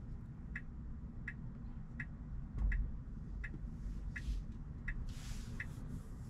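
Tesla Model Y's turn-signal indicator ticking evenly, about once every 0.7 seconds, over the low steady road rumble inside the cabin. There is a low thud about two and a half seconds in and a short hiss near the end.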